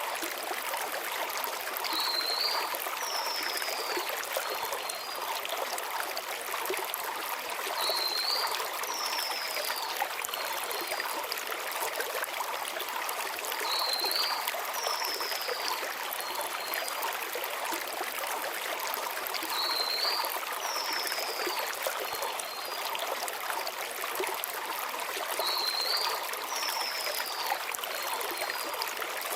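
Mountain stream flowing steadily over stones. A small bird's call repeats about every six seconds: a short rising note, then a falling whistle.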